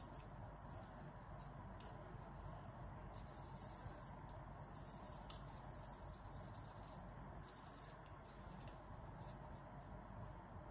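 Faint rubbing and scratching of a cloth scrubbing a baritone's valve piston, with a sharp click about five seconds in.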